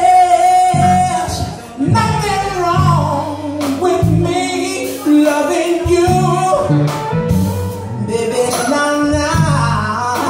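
A man singing with a live band of electric guitar, bass and drums. He holds a long note at the start, then sings a flowing, bending melody line.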